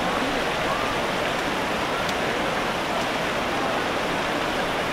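Steady rushing of a swift, rocky stream running over rapids.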